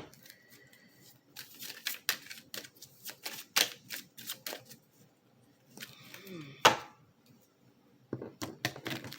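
A deck of oracle cards being shuffled and handled by hand: a run of quick card clicks and slaps, with one sharp snap about two-thirds of the way through.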